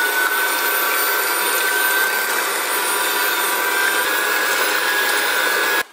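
Electric hand mixer running steadily, its beaters whisking eggs, sugar and oil in a bowl, with a steady whine over the motor noise. It switches off just before the end.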